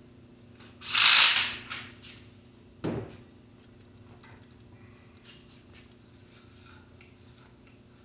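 Handling noises while a mountain bike is assembled on a stand: a loud rushing rustle lasting under a second, a knock about two seconds later, then light clicks and taps of parts being handled.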